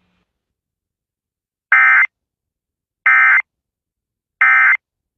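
Emergency Alert System end-of-message (EOM) signal: three short bursts of buzzy digital SAME data tones, about a second and a third apart, marking the end of the warning.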